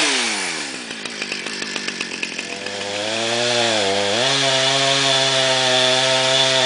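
Chainsaw engine dropping from a rev to a rattling idle, then throttled up again: the pitch dips once and then settles into a steady high-speed run.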